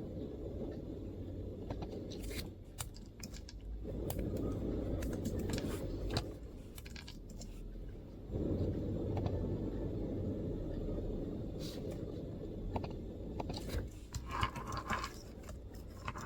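MacBook laptop keyboard keystrokes: soft clicks in irregular runs, some close together and some spaced out, over a low rumble that swells and fades several times.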